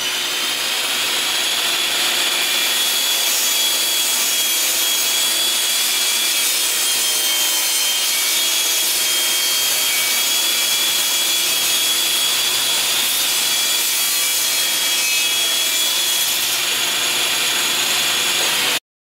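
Bosch REAXX jobsite table saw running at full speed with a high, steady whine, its blade ripping a long wooden board, the pitch sagging slightly under the load of the cut. The sound cuts off suddenly near the end.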